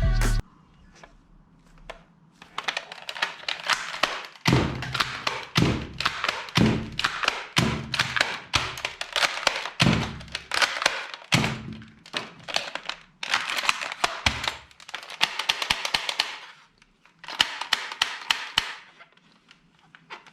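Toy guns handled and fired: rapid plastic clicks and taps with dull thuds mixed in.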